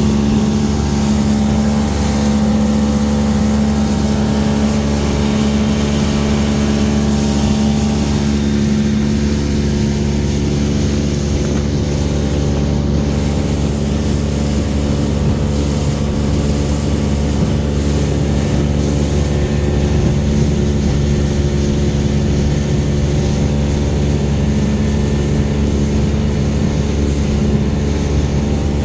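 Small boat's engine running steadily at cruising speed while under way, a constant hum with a steady rushing noise of wind and water over it.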